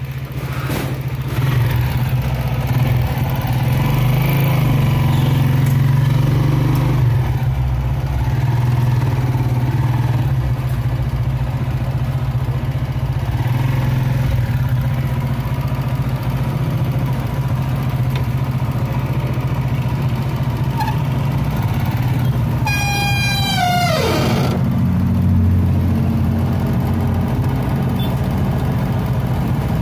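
Motorcycle tricycle's engine running as it pulls away and keeps driving, getting louder a second or two in. About three-quarters of the way through, a brief tone falls steeply in pitch over a second or so.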